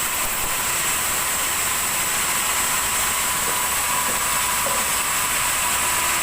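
Sawmill saw running steadily: an even, unbroken mechanical hiss with a thin high whine.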